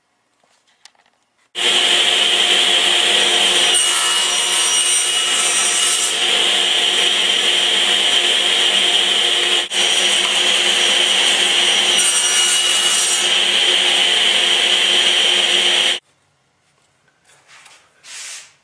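A power tool working wood runs steadily for about fourteen seconds, dips briefly about halfway through, then stops abruptly. A few faint short rustles follow near the end.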